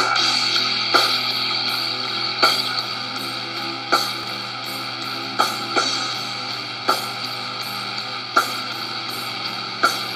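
Instrumental intro music: sustained chords with sharp accented hits about every one to one and a half seconds.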